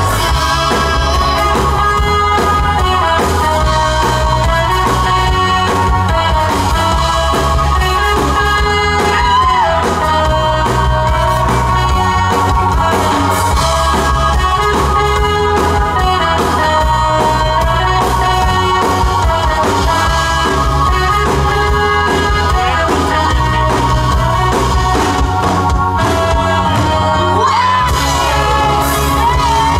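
A live band playing with two singers: electric guitar, keyboard, bass and horns under the sung melody. The bass drops out for a moment near the end.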